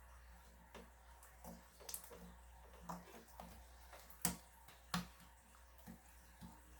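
Slime being squeezed and worked by hand, making irregular small sticky pops and clicks, with two sharper pops a little past the middle.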